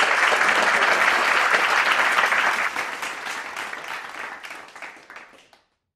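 Audience applauding: dense clapping that thins out and dies away over the last few seconds.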